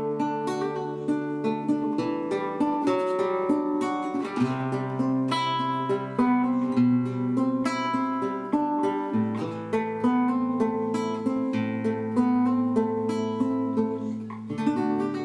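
Nylon-string classical guitar strummed in steady, palm-muted downstrokes that imitate a bass line. It moves through Em, D and Am chords twice, changing chord about every two and a half seconds.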